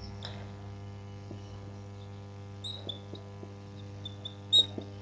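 Marker pen writing on a whiteboard: a few short, high squeaks and light taps, the loudest about four and a half seconds in, over a steady electrical hum.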